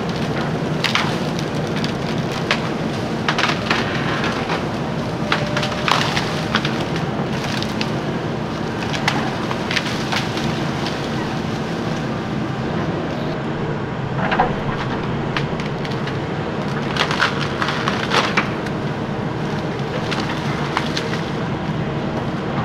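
Caterpillar backhoe loader's diesel engine running steadily while its bucket works through ice-coated fallen tree limbs, which snap and crack repeatedly in scattered bursts.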